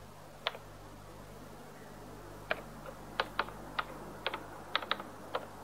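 Keys of a Bildschirmtext (Btx) terminal keyboard pressed one at a time while an account number is typed in. About ten separate clicks, sparse at first and coming quicker in the second half.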